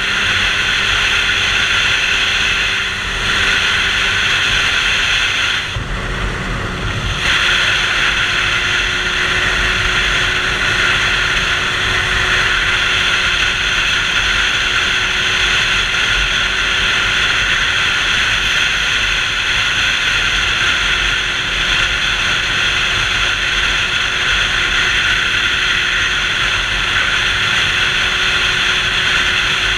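Sport motorcycle riding at a steady cruise: loud wind rush over the onboard camera's microphone over the engine's steady hum. The rush briefly drops about six seconds in.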